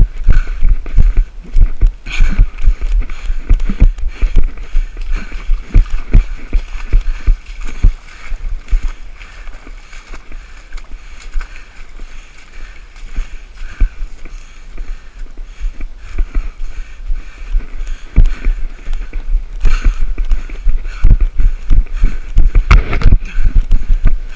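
A runner's body-worn camera jolting with each stride, giving a steady rhythm of heavy thuds from footfalls on a muddy dirt trail over a constant hiss. The thuds grow softer for several seconds midway, then come back hard near the end.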